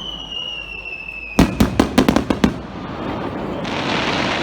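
Starmine fireworks: a whistling shell's whistle, falling slightly in pitch, ends as a quick string of about eight sharp bangs about a second and a half in. A dense hiss then builds toward the end.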